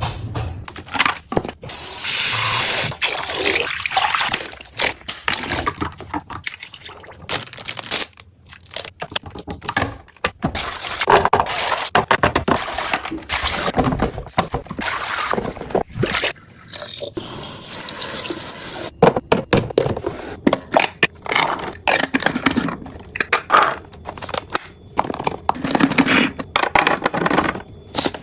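Containers and packaging being handled while restocking a fridge: a busy run of clicks, knocks and scrapes, with stretches of liquid being poured into containers.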